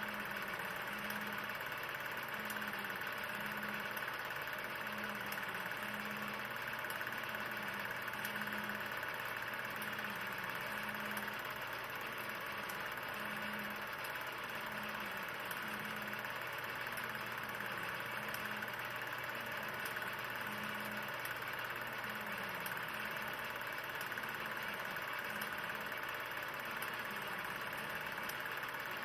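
A steady mechanical hum with hiss and a low tone pulsing about once a second.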